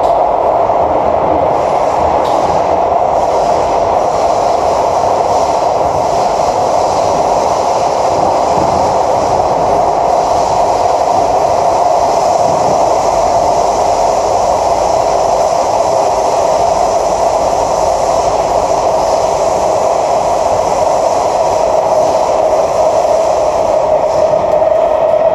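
Cabin running noise of an SMRT C151A metro train travelling underground at steady speed: a loud, even rumble of wheels on rail with a constant mid-pitched hum over it.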